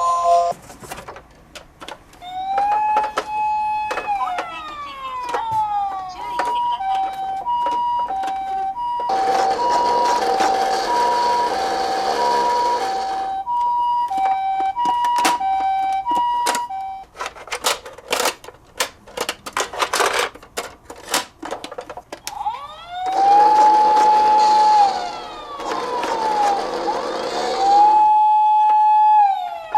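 Toy emergency-vehicle sirens. A wailing siren rises, holds and falls. It is followed by a two-tone hi-lo siren of the Japanese ambulance kind, alternating evenly for about ten seconds. Then comes a stretch of rapid clicks and rattles, and the wailing siren returns twice near the end.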